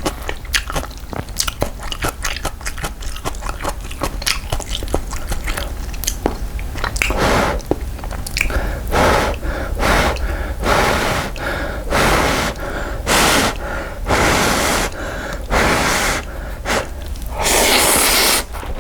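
Close-miked eating of cup ramen: about seven seconds of wet chewing and crunching clicks, then a string of noisy slurps of the noodles and broth, the longest near the end.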